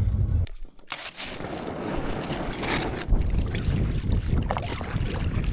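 Strong wind buffeting the microphone: a loud rushing noise that gusts up and down with scattered crackles, then cuts off suddenly near the end.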